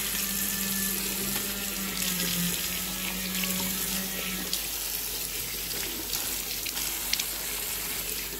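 Water from the tap running and splashing into a ceramic wash basin as the bowl is rinsed, with a crumpled plastic bag rubbed over the wet surface. A low steady hum underneath stops about halfway through.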